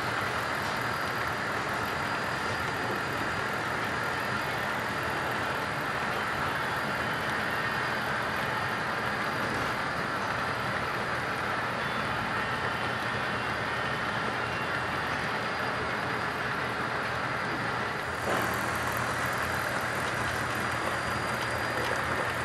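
HO scale model freight train running steadily along the track, its diesel locomotives and cars making an even, continuous running noise.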